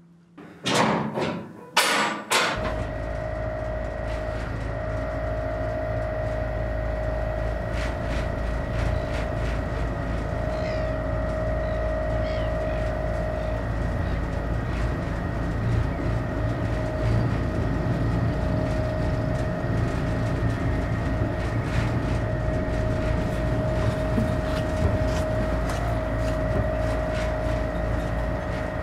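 A boat's engine starting after two short loud bursts, then running steadily with a low drone and a steady whine on top.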